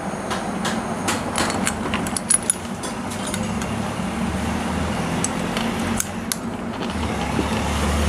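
Light metallic clicks and clinks of small steel parts, such as rocker pins, being handled and fitted into a motorcycle cylinder head. The clicks come in scattered clusters over a steady low background hum that grows louder near the end.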